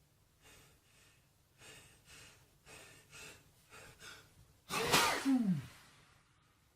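A man's allergy sneezing fit, set off by dust: a run of short, catching breaths building up, then one loud sneeze near the end with a voiced tail that falls in pitch.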